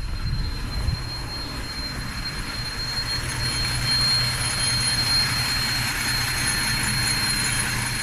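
Chevrolet Trailblazer's 4.2-litre inline-six running at idle with a heavy misfire that sets no trouble codes. A thin, steady high whine runs over the engine noise throughout.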